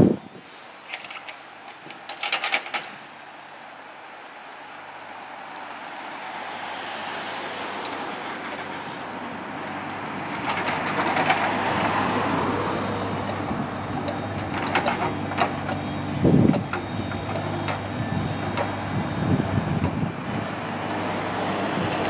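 Compact John Deere excavator's diesel engine running steadily, swelling louder for a few seconds near the middle as the arm works, with a few short knocks and clanks of the steel bucket in the dirt.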